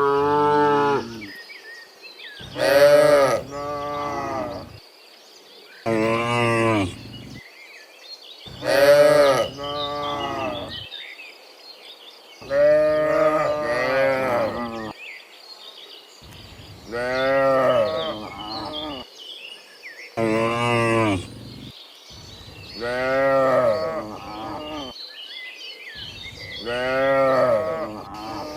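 Cattle mooing again and again, a dozen or so long calls of about a second each with short pauses between, some calls falling into a second, lower part.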